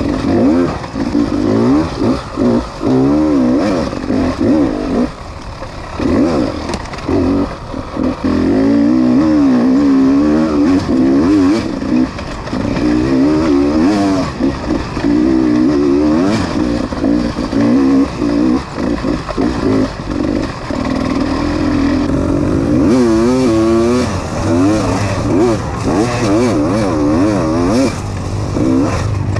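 Dirt bike engine revving up and down in quick, choppy throttle bursts, its pitch wavering rapidly, with a brief drop about five seconds in, the stop-and-go throttle of a bike being picked over rough rocky ground.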